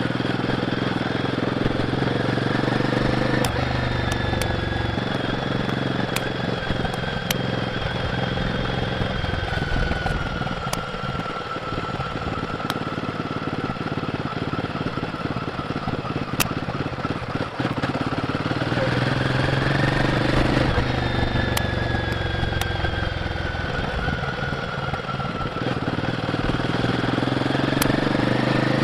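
Royal Enfield Guerrilla 450's single-cylinder engine and stock exhaust under way, the engine pitch rising and falling with the throttle. The revs climb about two-thirds of the way through, drop back, and climb again near the end, over a steady rush of wind and road noise.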